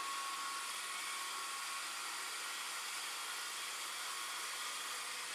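A belt grinder's abrasive belt grinding a steel billet, giving a steady, even hiss.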